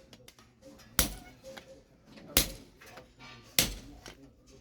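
Blacksmith's hammer striking axe-head steel on an anvil while forging: three separate blows about a second and a quarter apart, each with a short ring.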